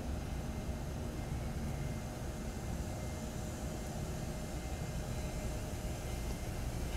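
Taiwan Railways E200-series electric locomotive pulling slowly away from a stop with its train: a steady low rumble with a faint steady hum over it.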